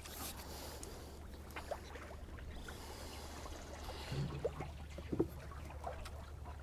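Faint water lapping and trickling around a small boat, with a few light knocks and clicks of handling, the clearest about four to five seconds in.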